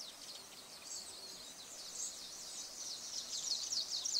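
Recorded meadow birdsong from a nature ambience track: quick, high, repeated chirps and trills over a faint hiss, growing busier and louder about three seconds in.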